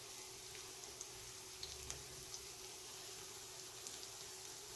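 Fish pieces frying in oil in a pan, sizzling faintly and steadily with a few small crackles and pops.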